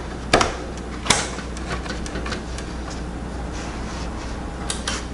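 Sharp clicks and knocks from hands working a memory module in a desktop PC's RAM slots: two loud clicks in the first second or so and two more near the end, over a steady low hum.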